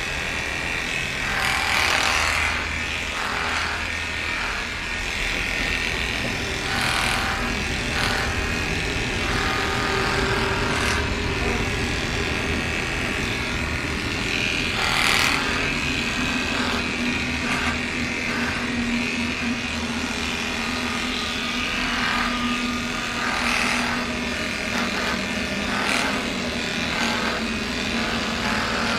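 Electric pet grooming clippers running with a steady hum as they shave a pug cross's coat down. Short louder rasps come and go every few seconds.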